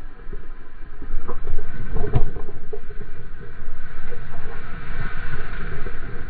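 Water rushing and spraying past a surfboard riding a breaking wave, with low wind buffeting on the board-mounted microphone and a sharp knock about two seconds in.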